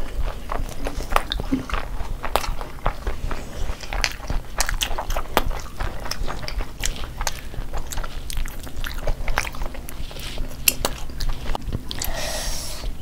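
Two people biting and chewing food close to the microphones in an eating-show recording, with many short crunchy clicks throughout.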